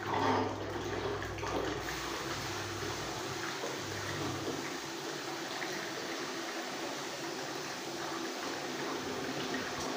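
Water running and swirling steadily in a pedicure spa basin, with a low hum underneath that stops a few seconds in.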